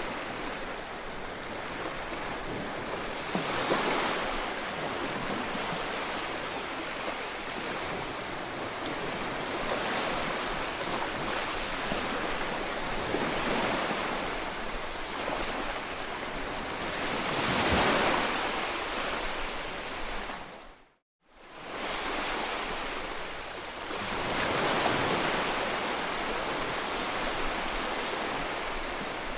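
Small waves breaking and washing up a sandy beach, the surf swelling and fading every few seconds, loudest about two-thirds of the way through. The sound drops out briefly just after that.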